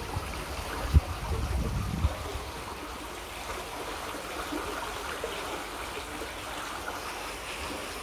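Small waterfall trickling steadily over stone ledges into a pond. A sharp low thump about a second in, followed by a brief low rumble.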